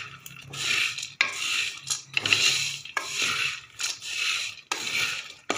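Wooden spatula stirring chopped nuts in a metal kadhai: rasping scrapes about twice a second as the nuts are pushed and tossed across the pan, with a sharp knock on the pan about a second in and again near the end. The nuts are being roasted on low heat to drive out their moisture.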